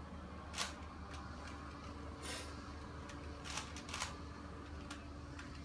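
Plastic twisty puzzle, such as a Rubik's cube, being turned by hand: faint, scattered clicks and clacks as its layers turn. A steady low hum runs underneath.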